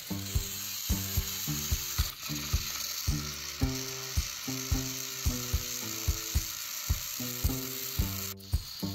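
Electric motors and gears of battery-powered toy trains whirring in a steady hiss as two engines push head-to-head on plastic track. Under it, background music with a steady beat.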